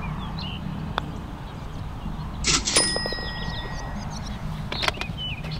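A putter taps a golf ball about a second in. About a second and a half later there is a short clatter and a bright ringing ding that lasts about a second as the birdie putt drops into the cup. Birds chirp faintly in the background.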